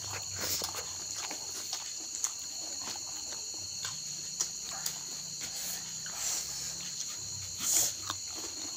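Close-miked chewing and mouth sounds of someone eating raw vegetables with sambal by hand, a run of short clicks and smacks, over a steady high chirring of crickets.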